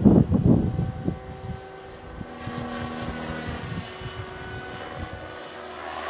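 Electric RC helicopter, a CopterX 500, flying overhead: a steady whine from its motor and rotors, growing louder a little way in. Wind buffets the microphone with low rumbles in the first second or so.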